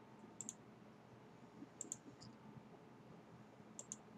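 Computer mouse clicking three times, each click a quick pair of ticks, about a second and a half apart, over faint room tone.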